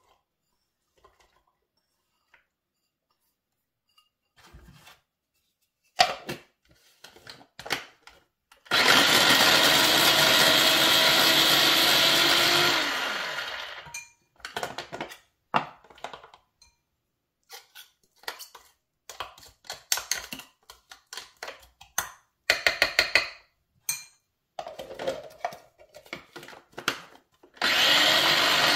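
Small electric mini chopper whirring as it blends herbs, green pepper and onion: one run of about four seconds that winds down, then a second run starting near the end. Between the runs, short clicks, knocks and brief bursts from the plastic bowl and lid being handled.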